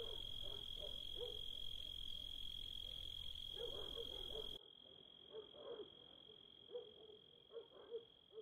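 Frogs croaking faintly in short, irregular calls over a steady high-pitched whine. The low background hiss cuts out about halfway through while the croaks go on.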